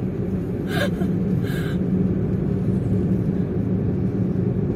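Steady road and engine rumble inside the cabin of a car moving at highway speed, with two short bursts of laughter about a second in.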